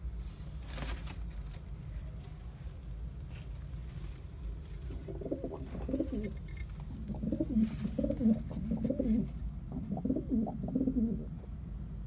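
Domestic pigeons cooing in a low, wavering voice, in repeated runs from about five seconds in.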